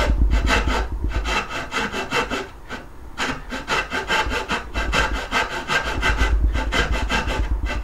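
Small gentleman's backsaw cutting wood by hand in quick, even strokes, each a short rasp. The strokes ease briefly about three seconds in, then carry on. The saw is cutting the angled part of a mitred dovetail joint.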